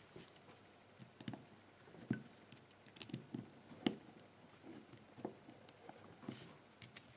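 Irregular small metallic clicks and scrapes of a screwdriver prying and bending the retaining clip off a lock cylinder, the sharpest click a little before the middle.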